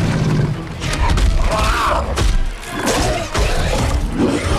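Action-film soundtrack: music under repeated heavy thuds and crashes of a fight.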